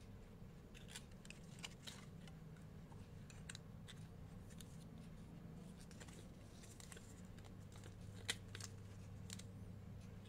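Faint handling noise of a cardboard earphone box being turned and opened in the hands: scattered light clicks and rustles, a sharper click about eight seconds in, over a steady low hum.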